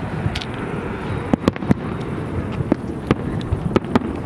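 Fireworks shells bursting in the distance: about eight sharp bangs at uneven intervals, several close together in the middle. This is the finale of the display.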